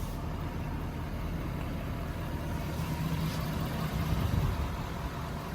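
Ford 6.7 L Power Stroke V8 turbodiesel idling steadily, a low, even rumble.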